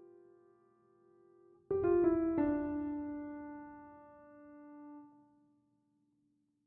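Slow piano music: a few notes struck together about 2 seconds in ring out and slowly fade, then it goes quiet near the end.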